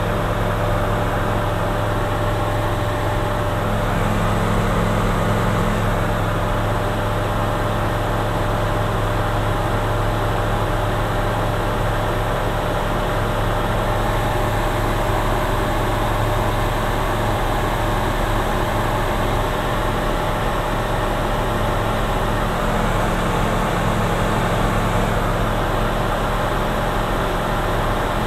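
Engine and propeller of a single-engine light aircraft, droning steadily from inside the cockpit in cruise flight. The engine note holds one low pitch throughout.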